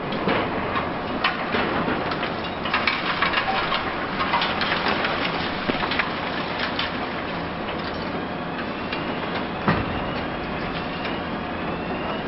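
High-reach demolition with a Hitachi Zaxis 870 excavator: concrete and debris crunching and clattering in a run of sharp knocks over the steady drone of the machine. There is one sharp bang about ten seconds in, then a rising whine near the end.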